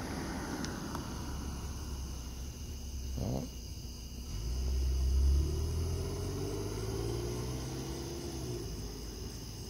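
A police patrol car driving away: its engine and tyres run with a low rumble that swells about five seconds in, then the engine note glides up and down as it pulls off. Crickets trill steadily in the background.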